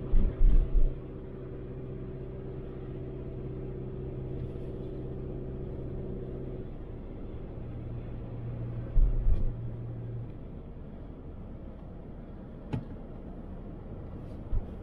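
Car engine and road noise heard from inside a moving car on a snowy, slushy street: a steady hum whose pitch drops partway through, with low thumps at the start and about nine seconds in, and a few sharp clicks near the end.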